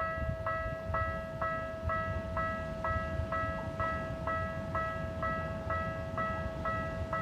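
Japanese railroad crossing warning bell ringing its repeated 'kan-kan' strikes, about two a second, over a steady tone and a low rumble.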